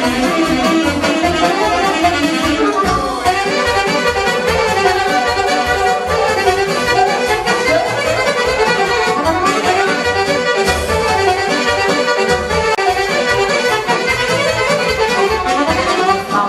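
Live band playing an instrumental Romanian folk dance tune, with a saxophone among the lead instruments over a steady bass beat.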